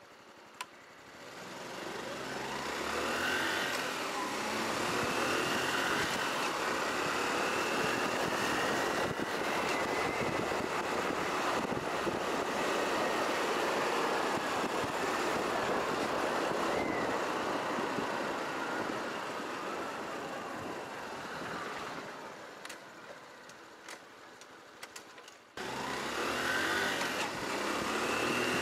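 Honda Cross Cub 110's small single-cylinder four-stroke engine pulling away from a near-idle, its pitch rising and falling through the gears, then running steadily under heavy wind and road noise. It eases off a few seconds before the end, then the sound jumps back up suddenly.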